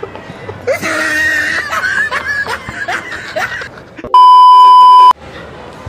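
A person's high-pitched voice for about three seconds, then a loud, steady one-second censor bleep tone that cuts off sharply.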